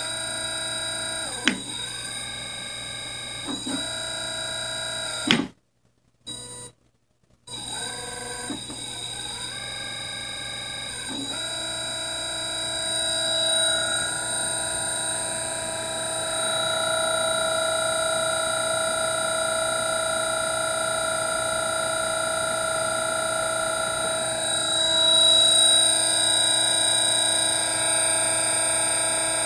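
Hall-sensored brushless DC motor driven by a PWM commutation board, whining with several steady high-pitched tones. In the first ten seconds or so the whine keeps breaking off with short pitch sweeps and drops out for about two seconds. From about twelve seconds in it runs steadily.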